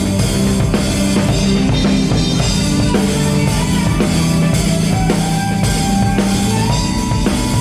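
Live band playing during a sound check: drum kit with bass drum and snare over a bass line, and a long held melody note from about five seconds in that steps up in pitch.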